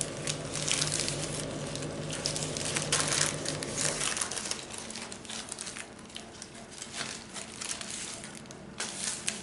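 Crinkling and rustling of a thin wrapping sheet as a rolled sponge cake is unrolled and flattened on it by hand, in many small irregular crackles. A low steady hum runs underneath and stops about four seconds in.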